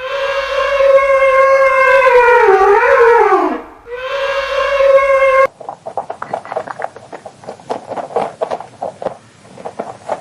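Recorded animal calls: a long horn-like call with rich overtones that wavers and falls in pitch, then a shorter call at the same pitch. After an abrupt cut, a rapid run of short clicking pulses follows.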